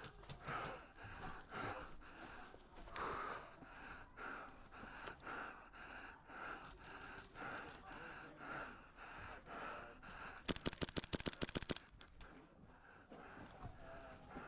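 Heavy rhythmic breathing, with a rapid full-auto burst of airsoft gunfire, a quick string of sharp cracks lasting just over a second, about ten and a half seconds in.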